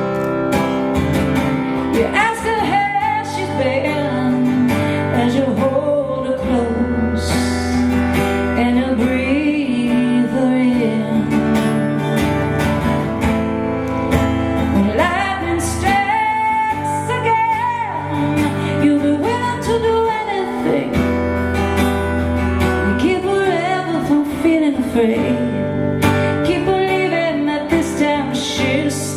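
A live song performance: a woman singing long, gliding melodic lines over acoustic guitar accompaniment.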